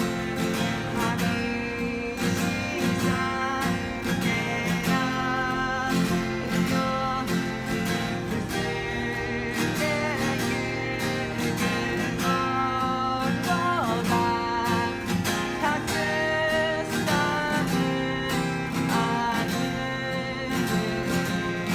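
A solo singer performing a song live over steadily strummed acoustic guitar, the voice holding some long notes with vibrato.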